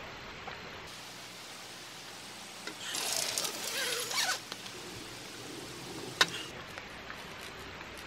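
A burst of rustling, then about six seconds in a single sharp knock of something falling onto the tent roof, over a steady hiss.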